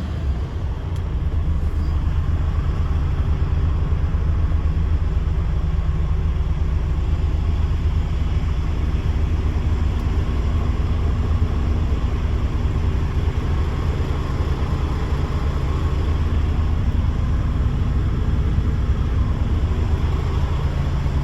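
DAF CF85's Paccar MX 460 bhp straight-six diesel engine idling steadily.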